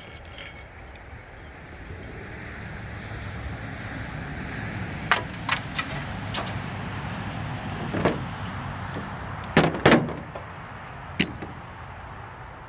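A vehicle going by, its rumble swelling and then fading, with several sharp knocks over it; the loudest two come close together late on.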